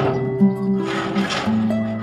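Background music with plucked-string, guitar-like notes changing in pitch every half second or so.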